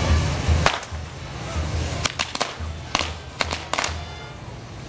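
Firecrackers on a firework tower's spinning wheels going off in sharp, irregular cracks, about eight of them, mostly bunched in the middle. Music with a low thumping beat plays under them.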